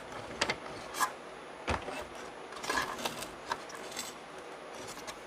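Vacuum cleaner power cord being pulled through its plastic housing: irregular rubbing and scraping of the cord against plastic, with a few light knocks, one sharper knock nearly two seconds in.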